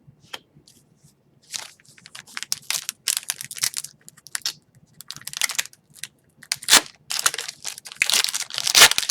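Upper Deck hockey card pack wrapper being crumpled and torn open: a run of sharp crinkling, crackling rustles that starts about a second and a half in and grows busier toward the end, with one loud crack near the middle.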